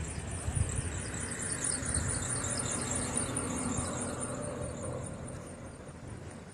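A car passing on a street: its tyre and engine noise swells in the middle and fades away. A high, quick, evenly repeating chirp sounds above it.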